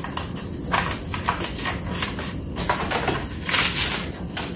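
Paper rustling and plastic clicking and scraping as a sheet is loaded into the front paper cassette of an Epson ET-15000 printer and its paper guides are adjusted, in short irregular bursts.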